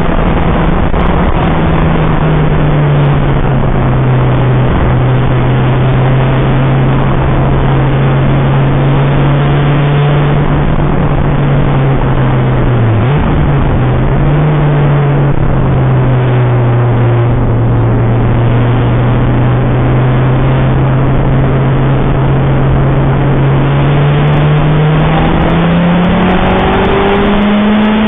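Citroën Saxo VTR engine running on track under a constant loud rush of wind and road noise. The engine note falls about a second in, holds steady for a long stretch with a brief dip near the middle, then rises near the end as the car accelerates.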